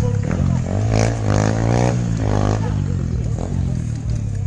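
Motorcycle engine revving during an off-road run, its pitch rising and falling, with two stronger swells in the middle.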